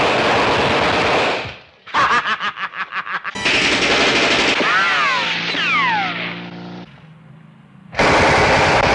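Film gunfire from several cut-together scenes, mostly automatic fire. About two seconds in there is a rapid burst of submachine-gun fire at about nine shots a second. Loud dense stretches of shooting come before and after it, with several falling whines in the middle.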